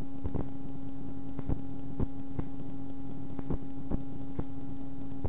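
Steady low hum from the recording setup, with scattered short clicks every half second to a second.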